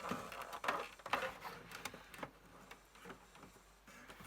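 Irregular light clicks and knocks with brief scraping, from hands working the circuit board and its cable loose inside the plastic case of a Commodore MPS-801 dot-matrix printer. The loudest clicks come about a second in.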